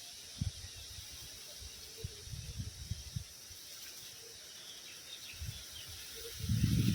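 Outdoor ambience: a steady high insect-like drone, with irregular low rumbles that grow loudest near the end.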